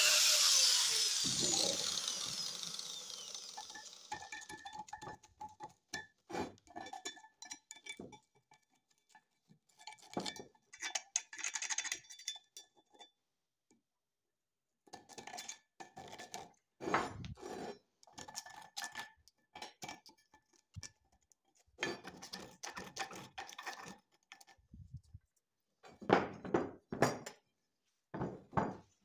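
An angle grinder spins down after being lifted off the metal, its whine falling in pitch and fading over the first few seconds. After that, a hand scraper blade scrapes paint and grit off the metal vise base in irregular bursts of short strokes, with a few louder scrapes near the end.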